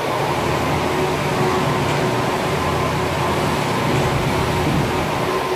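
Wanlong LXM-20 automatic line polisher running: a steady mechanical hum from its motors and polishing heads, with a faint constant whine over a broad hiss.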